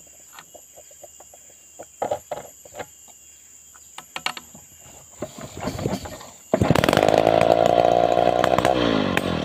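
Scattered light scrapes and clicks of a file on a chainsaw chain. About two-thirds in, a chainsaw engine starts abruptly and runs loud and steady, its pitch dropping near the end.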